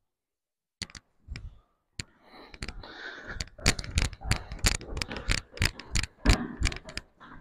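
Footsteps going down a staircase: a few scattered steps, then from about three seconds in a regular run of sharp footfalls, about three a second.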